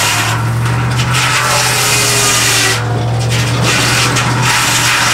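Large circular sawmill blade cutting lengthwise through a log: a loud, continuous hissing saw noise that eases off briefly a few times, over the steady low hum of the engine driving the mill.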